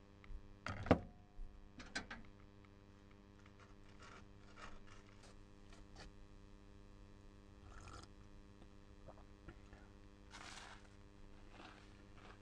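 Small clatters and scrapes of breakfast things being handled, a mug, a knife and bread on a cutting board, with one sharper knock about a second in and a brief rustle near the end. A steady electrical hum runs underneath.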